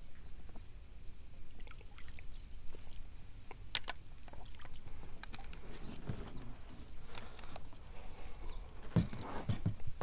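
Scattered splashes, clicks and knocks as a hooked pike is scooped up in a landing net and lifted into an inflatable boat, with a louder cluster of knocks near the end.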